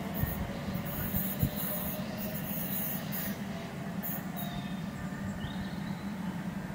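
Train running at the far end of the station, a steady low rumble, with wind noise on the microphone. A faint short rising whine is heard about five seconds in.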